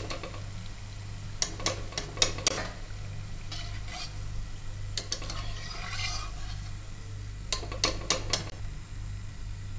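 Metal slotted skimmer clinking and scraping against a metal kadhai in short clusters, as fried chickpea kofta are scooped out of hot ghee, with a light sizzle of the oil in between.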